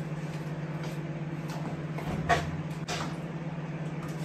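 Microwave oven running with a steady low hum, and a short clack about two seconds in.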